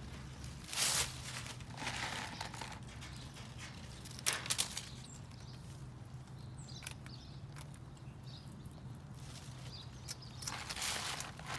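Short, crunchy rustling and scratching bursts in dry dirt and leaves: one about a second in, another around two seconds, a sharper pair around four seconds, and a longer stretch near the end, over a steady low hum.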